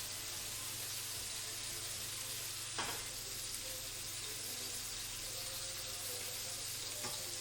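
Steaks searing in hot oil in a frying pan on high heat, sizzling steadily, with one light click about three seconds in.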